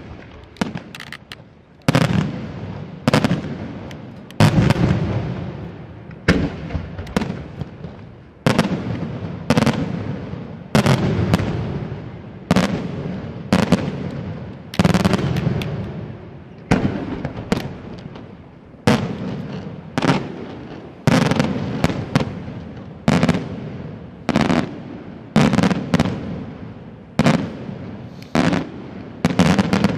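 Aerial firework shells bursting one after another, about one sharp bang a second, each bang trailing off in an echo before the next.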